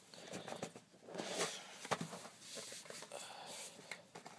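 Rustling and small clicks and knocks of wand packaging being handled, with a louder patch of rustling about a second in and a sharper click about two seconds in.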